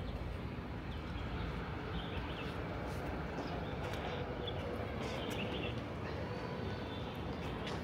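Steady outdoor background hum with a few scattered bird chirps and occasional light clicks.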